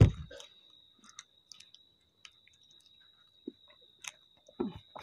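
Faint chewing with small wet mouth clicks as a person slowly works through a mouthful of sticky Marie-biscuit sandwich. A short low thump comes right at the start, and a faint steady high whine sits under it all.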